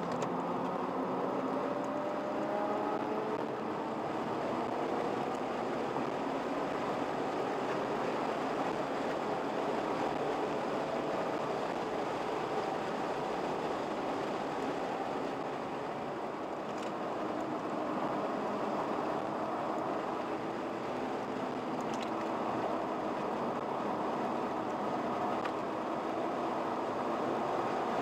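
Car engine pulling hard under acceleration, heard from inside the cabin under heavy wind and road noise; the engine note climbs in pitch a few times.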